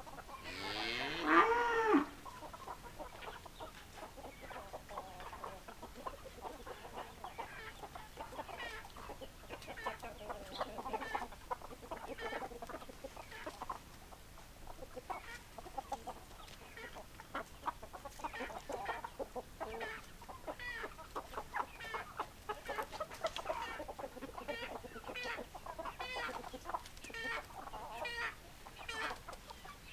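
Hens clucking, many short calls repeating throughout. About a second in, one loud drawn-out call lasting over a second, a rooster crowing.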